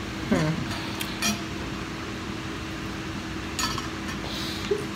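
A few light clicks and knocks of things handled on a table, including a purple insulated tumbler picked up, over a faint steady hum.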